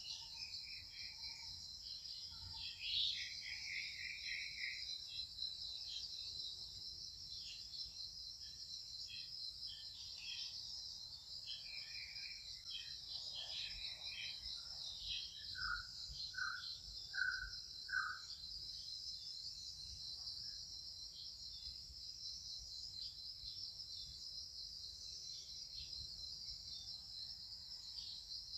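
Steady high insect chorus droning without a break, with scattered short chirping calls over it, including a row of four short notes about two-thirds of the way through.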